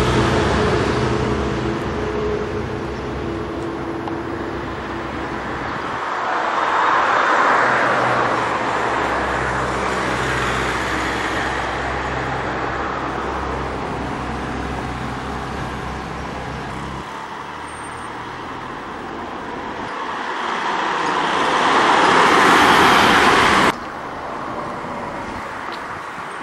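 Road traffic on a town street: passing cars whose engine and tyre noise swells and fades twice, once about a quarter of the way in and again near the end, where it cuts off suddenly. At the very start a vehicle engine hums and fades away.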